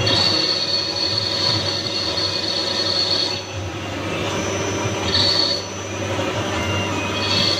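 Wintec TC15 CNC lathe running, with a steady machine hum and a high squeal that comes and goes: a long stretch at first, a short one about five seconds in, and again near the end.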